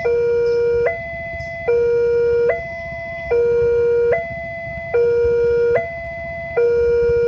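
Electronic level-crossing warning alarm sounding a steady two-tone signal, switching between a louder low tone and a higher tone about every 0.8 seconds, warning that a train is approaching the crossing. A steady low rumble runs beneath it.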